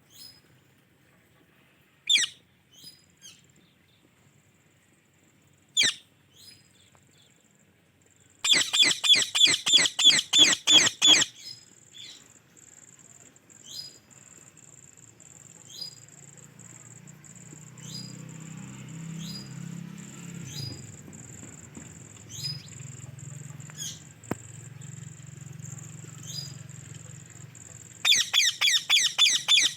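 Indian ringneck parakeet calling: single sharp chirps, then loud runs of rapid, repeated shrill calls, with a few short chirps between them.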